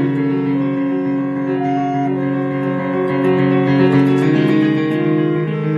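Live instrumental music: keyboard chords and long held notes, with a saxophone playing along.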